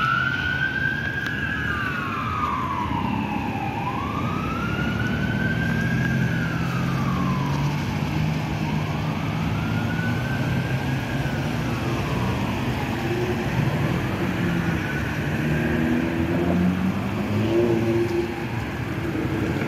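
Ambulance siren on a slow wail, rising and falling about every five seconds and growing fainter over the second half, over the low rumble of road traffic.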